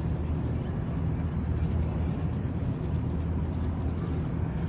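Steady low engine drone under an even hiss of ambient noise.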